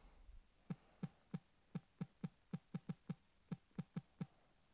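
A run of about fourteen quick, faint taps typing on a smartphone's on-screen keyboard, one tap per letter, at an uneven typing rhythm.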